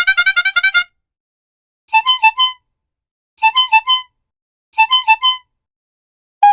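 Clown horn honking: a quick run of short honks that stops about a second in, then three short bursts of about three honks each, roughly a second and a half apart.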